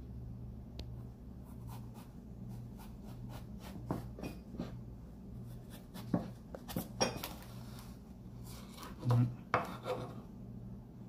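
Kitchen knife slicing lengthwise through a long Asian eggplant on a plastic cutting board: a run of light ticks and scrapes as the blade works along, with a few louder knocks about nine seconds in. A low steady hum sits underneath.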